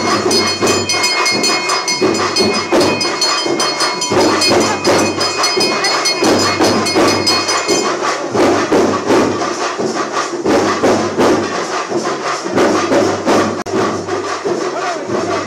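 Brass temple hand bell rung rapidly and continuously, stopping about halfway through, over a steady din of rhythmic temple music and percussion.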